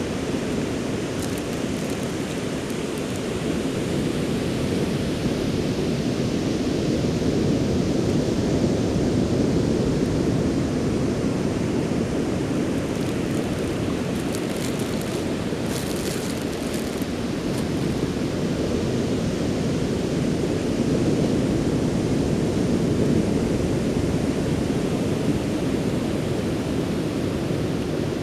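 Ocean surf washing onto the beach: a steady rushing noise that swells and eases slowly.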